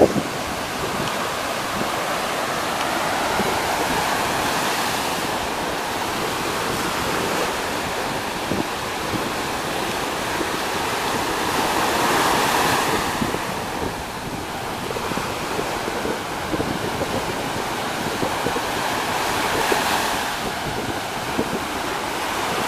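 Sea waves washing onto the shore, a steady surf noise that swells every several seconds as waves break, with wind buffeting the microphone.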